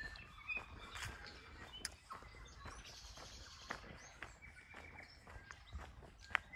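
Birds calling in the bush with short whistled notes, over a person's footsteps, faint and irregular.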